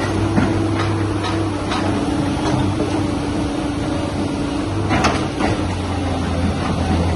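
Tata Hitachi crawler excavator's diesel engine running steadily under hydraulic load as the bucket digs into a pile of broken rock, with scattered knocks and scrapes of stone against the bucket, the loudest a pair about five seconds in.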